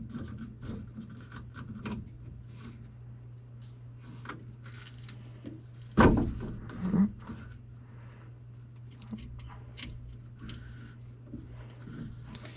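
Clunks and clicks of a thunderegg being fitted into the steel vise of a rock saw, with one loud knock about six seconds in and a smaller thud just after, over a steady low hum.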